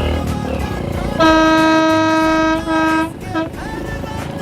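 A vehicle horn sounding one steady, single-pitched note: a long blast of about a second and a half with a brief break near its end, followed by a short toot.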